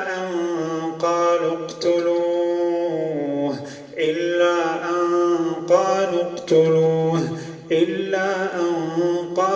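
A man reciting the Quran in a slow, melodic chant: long held notes in phrases of one to two seconds, with short breaths between them.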